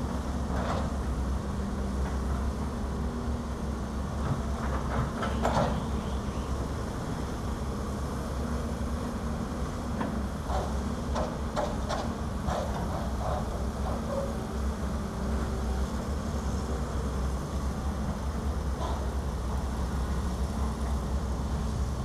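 Diesel engines of an excavator and dump trucks running steadily at a low rumble, with scattered clanks and knocks about five seconds in and again from about ten to thirteen seconds in.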